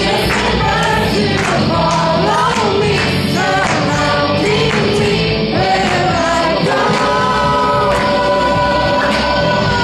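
A song with several voices singing together as a choir, over instrumental backing with a steady beat.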